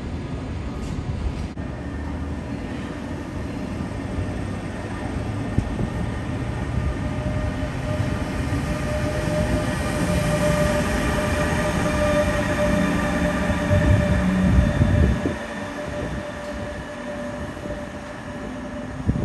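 Electric passenger train of double-deck coaches with an EU47 electric locomotive rolling past on the rails, a dense rumble of wheels and bogies under a steady high electric whine. The rumble is loudest about fourteen seconds in, then drops off sharply as the train draws away.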